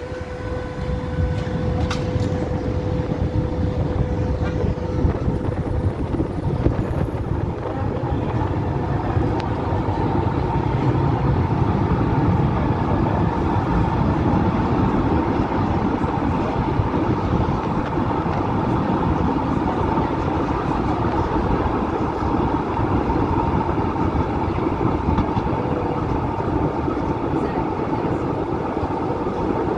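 Tram running along its track, heard from on board: a steady low rumble of wheels on rail with a steady whine, growing louder over the first couple of seconds as the tram pulls away from the stop.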